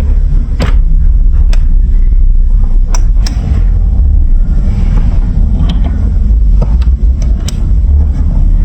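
Marbles rolling down a plastic building-block marble run: a loud, steady rolling rumble, with sharp clicks scattered through it as marbles knock against the track and each other.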